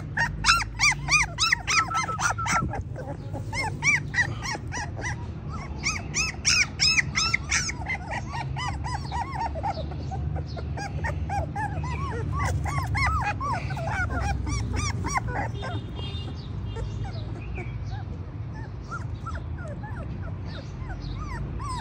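German shorthaired pointer puppies whimpering and yipping: many short, high cries in quick succession for the first several seconds, then fewer and fainter.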